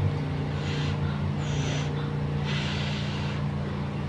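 A person blowing on a chopstickful of hot noodles to cool them: three soft puffs of breath, the last the longest, over a steady low hum.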